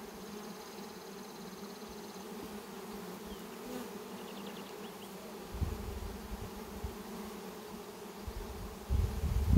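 Honey bees buzzing steadily around opened hive boxes, a whole colony's worth of flight noise from frames being lifted out. A low rumble comes in about halfway through and again near the end, where it is loudest.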